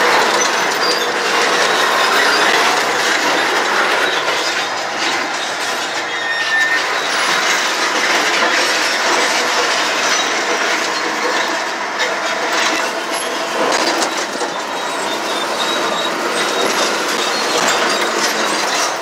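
Caterpillar D9R bulldozer at work, its steel crawler tracks clanking and squealing in a steady, dense clatter over the running diesel.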